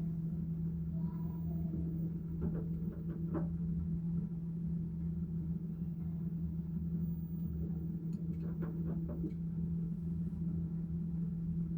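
LG direct-drive front-loading washing machine running on its spin-only cycle: a steady low hum with a rumble beneath it, and two short bursts of rattling, one a couple of seconds in and another around two-thirds of the way through.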